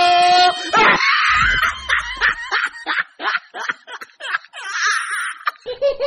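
High-pitched laughter sound effect, a rapid run of short ha-ha pulses with a thin sound and no low end, coming in just after a short musical sting cuts off about a second in. Music comes back near the end.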